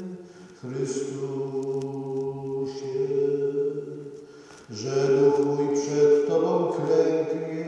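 Slow sung religious song, voices holding long steady notes in phrases. A new phrase starts about half a second in and another just before five seconds.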